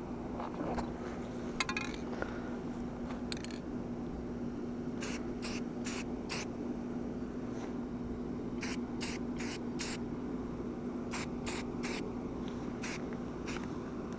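Aerosol spray paint can spraying in many short hissing bursts, a fraction of a second each and in clusters, laying a thin coat of red paint on a splitting maul head. A steady low hum runs underneath.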